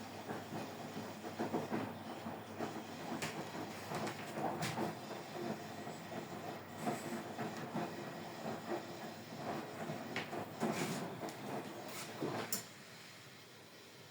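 Washing machine running, with a rumble and irregular knocking and clattering from the turning drum, that stops abruptly near the end.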